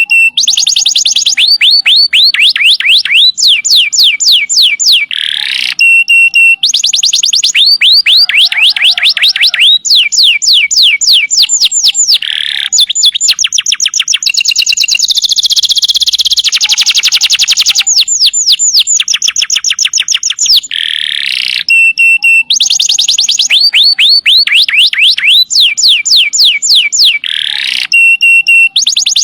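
Domestic canary singing: long, fast trills of repeated downward-sweeping whistled notes, broken by short steady notes, with the same phrases coming round again every few seconds.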